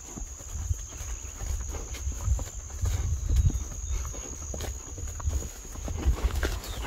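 A steady, high-pitched insect trill over a fluctuating low rumble, with scattered soft knocks.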